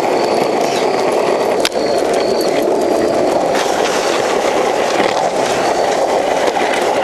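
Longboard wheels rolling fast on pavement: a steady loud rumble, with one sharp click about a second and a half in.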